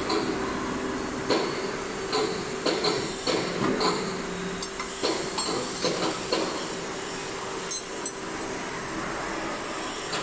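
Electric milling cutter (facer) of a hydraulic butt fusion machine running with a steady hum, with repeated irregular metallic knocks and clanks as it works between the pipe clamps; the knocks thin out near the end.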